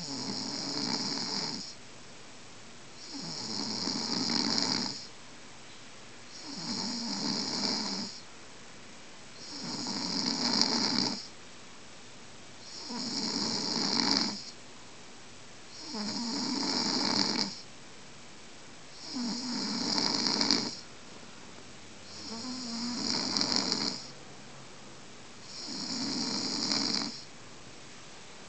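A drunk man snoring heavily in deep sleep: nine rasping snores, each about two seconds long, coming steadily about every three seconds with quiet breaths between.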